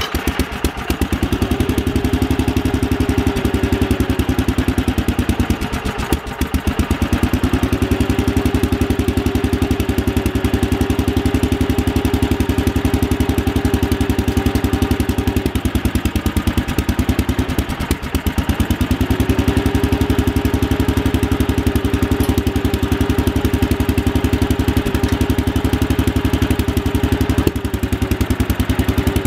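Kohler 12 hp single-cylinder engine running on the bench on its first test run after a rebuild, with steady, even firing. Its speed sags about six seconds in and again near eighteen seconds, then picks back up.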